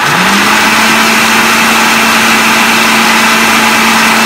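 Electric food processor switched on: the motor spins up over about half a second, then runs steady at full speed, churning crushed biscuits in the bowl.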